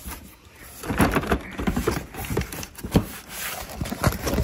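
Hands working at a cardboard box: irregular scraping, rubbing and knocks of cardboard, quieter for the first second and busier after.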